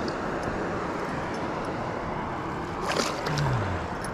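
Steady rushing noise of water at a dam spillway, with one brief sharp sound about three seconds in.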